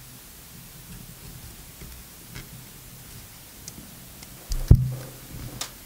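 Small plastic and metal parts of a rotary cutter's chuck being handled as the collet nut and collet are removed: faint clicks and rustling, with one louder knock about three-quarters of the way through.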